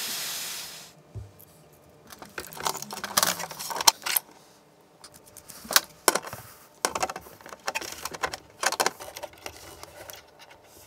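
A heat gun blowing as a steady hiss that fades out about a second in. Then a scattered run of sharp metallic clicks and clinks from a spanner and metal parts being handled.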